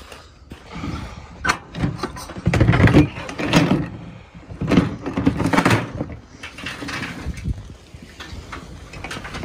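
Irregular knocks, rattles and rustling from junk and bagged trash being handled in a loaded mesh-sided utility trailer, loudest a few seconds in.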